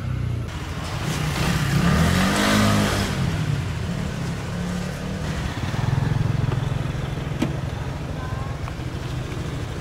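A Honda Vision motor scooter running as it rides off, its engine picking up speed about two seconds in, with street traffic around it.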